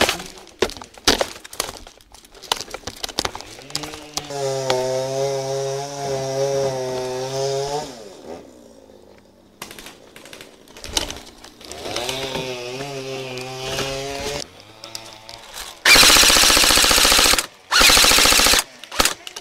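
Airsoft rifle firing two short full-auto bursts near the end, each about a second long, made of rapid repeated shots. Scattered clicks come earlier, and two long, steady pitched sounds come in the middle.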